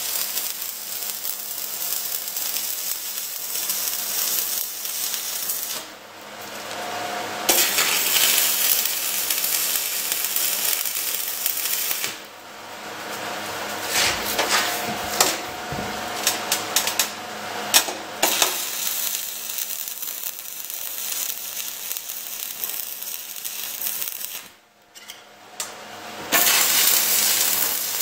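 Shielded metal arc (stick) welding with an Esab 215ic and 3/32-inch electrodes: the arc's steady crackling hiss in short beads. It stops and restarts a few times, with a cluster of sharp clicks and pops around the middle. The welder says the current is set a little high for this plate.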